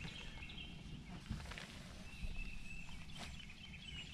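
Small birds chirping over a steady low rumble, with a couple of light knocks.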